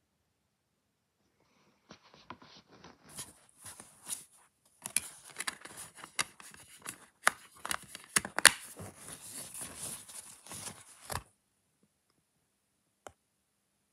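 Fingers handling a DVD and its plastic case: a dense run of plastic clicks, scrapes and crackles, with sharper snaps in the middle, which stops suddenly about two seconds before the end, followed by a single click.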